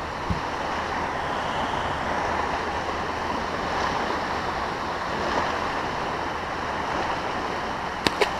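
Steady wind and water noise on a fishing boat's microphone, with a short knock just after the start and two quick sharp clicks near the end.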